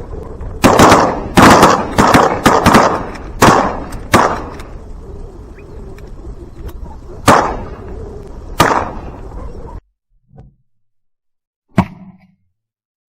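Shotguns firing a volley at ducks: a rapid string of loud blasts in the first four seconds, then two more spaced shots. The sound cuts off abruptly near the end, and one last sharp crack follows.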